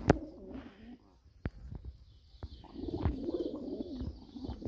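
Domestic pigeons cooing, a low wavering coo that builds through the second half, with a few sharp clicks, the loudest at the very start.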